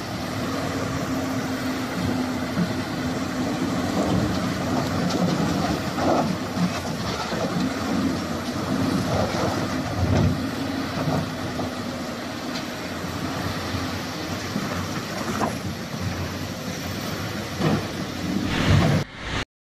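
Diesel engines of large crawler excavators running steadily under load, with a few sharp clunks of rock and steel as a dump truck is loaded. The sound cuts off abruptly near the end.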